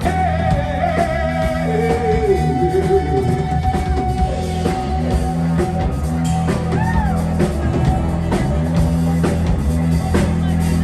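Live rock music from a band playing in a club, with a singer over guitar and drums.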